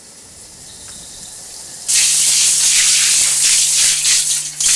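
Handheld shower spraying water, turned on suddenly about two seconds in, a loud even hiss with a steady low hum underneath.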